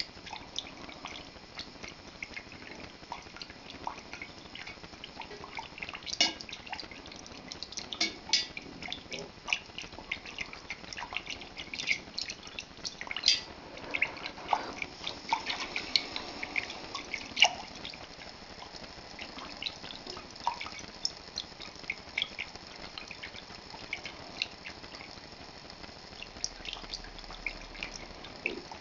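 Milk being stirred with a metal whisk in a stainless steel pot: irregular light clicks and small splashes as the whisk knocks the pot and moves the liquid, busiest in the middle stretch.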